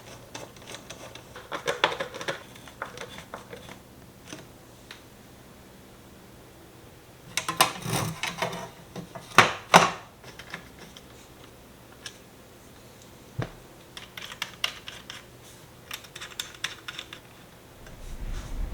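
Clicks, taps and light rattles of small computer case parts being handled and fitted together during a PC build, coming in several short clusters, the loudest a little before halfway.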